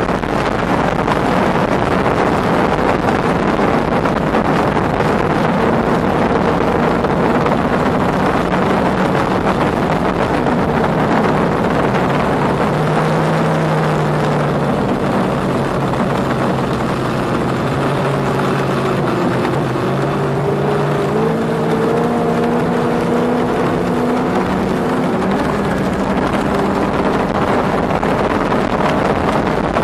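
Mercury 300R outboard on a tunnel boat running at high speed under heavy wind and water rush, its engine note climbing steadily from about halfway through as the boat accelerates.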